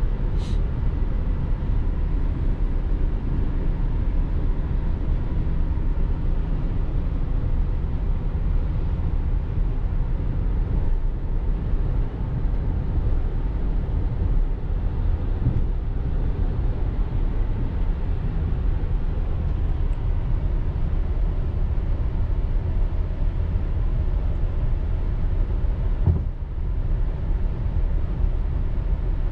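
Car driving at a steady pace, a constant low rumble of road and engine noise.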